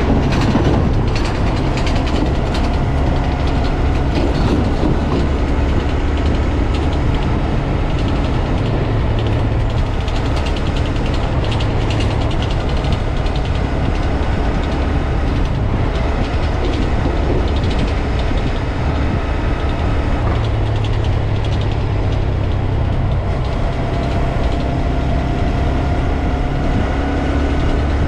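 2022 Honda Grom's 125 cc single-cylinder engine and gearbox running on the move, with a steady mechanical whir and rattle whose pitch shifts with speed. This is the transmission noise the owner takes for a mechanical fault in the five-speed gearbox.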